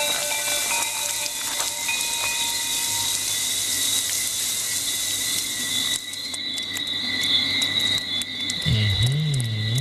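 Rain falling steadily over a constant chirring of night insects. About six seconds in, the rain hiss drops away, leaving the insects and scattered ticks. Near the end a low wavering synth tone comes in.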